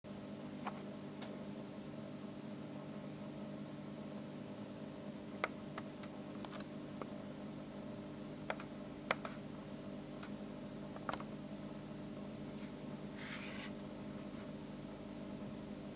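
Steady low hum made of several pitched tones, with a few faint scattered clicks and a brief hiss about 13 seconds in.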